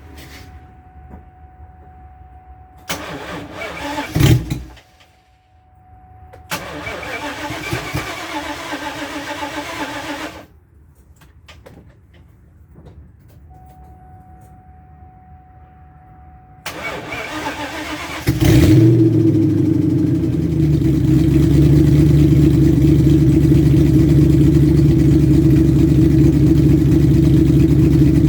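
2000 Mustang GT's 4.6-litre V8, with shorty headers and a Borla cat-back exhaust, being started in several tries. There is a short crank that stops about four seconds in, a longer crank that does not catch, and a pause. Then it cranks again and fires about two-thirds of the way through, flares and settles into a steady idle.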